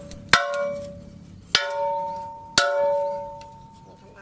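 Three hammer blows on a steel dump truck rear axle housing, about a second apart, each leaving a clear metallic ring that slowly fades.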